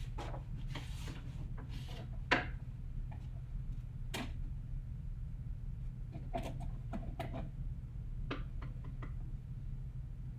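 Scattered knocks and clicks of paint supplies being gathered and handled, the sharpest about two seconds in, over a steady low hum.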